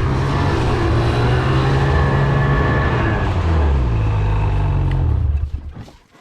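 Ski-Doo MXZ 800R E-TEC snowmobile's two-stroke twin engine running with its pitch rising and falling. The engine sound dies away about five and a half seconds in.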